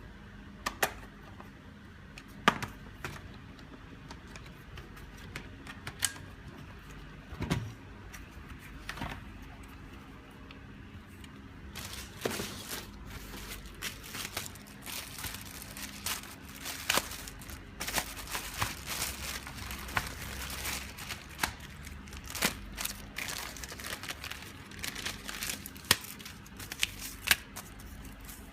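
Hands handling laptop parts: scattered sharp clicks and taps of plastic and small metal parts, sparse at first and much busier from about twelve seconds in.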